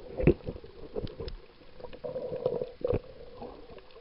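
Muffled water noise heard through a camera held underwater: gurgling and sloshing with a few dull knocks, the loudest about a third of a second in and just before the three-second mark, over a faint steady hum.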